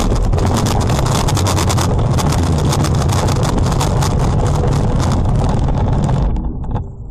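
Loud wind rush and buffeting on the microphone over the low rumble of a car driving at speed, with engine and road noise underneath. The noise drops away sharply about six seconds in.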